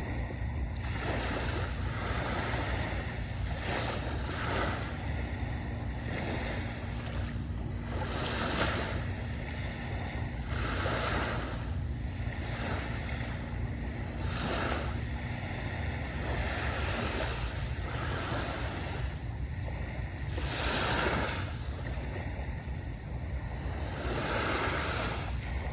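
Small waves breaking and washing up a sandy beach, one wash every few seconds over a steady low rumble of surf.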